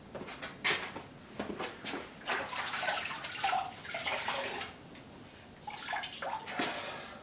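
Water sloshing and splashing in a bucket as a cloth rag is dipped and soaked in it, with a few sharp knocks of handling.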